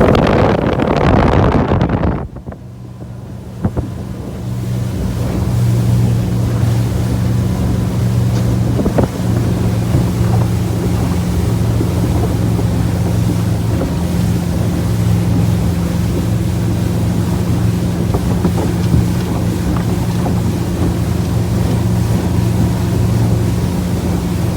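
Motorboat engine running steadily at an even pitch, with wind buffeting the microphone and water rushing past. A loud gust of wind noise in the first two seconds drops away suddenly.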